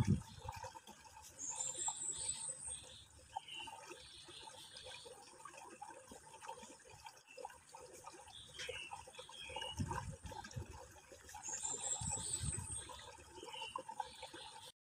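Nature ambience of bird chirps, including a high rising trill heard twice, over a faint trickle of water. It cuts off abruptly just before the end.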